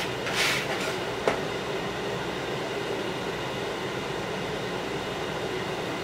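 Steady mechanical hum in the kitchen, with a short scratchy rustle about half a second in and a single light tap just after a second, from garlic-powder lumps being worked loose by hand in a bowl of seasoned flour.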